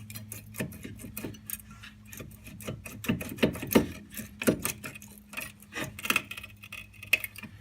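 Irregular metallic clicks, knocks and rubbing as a rear disc-brake caliper on a 2003 Honda Element is worked loose and pulled off, its piston pushing back as the caliper frees up. The knocks come loudest in the middle of the stretch.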